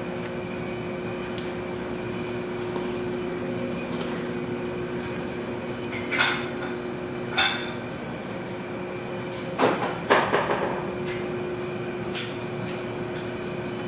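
A steady machine hum with a few constant pitches, broken by sharp knocks about six and seven seconds in and a short burst of clattering knocks around ten seconds in.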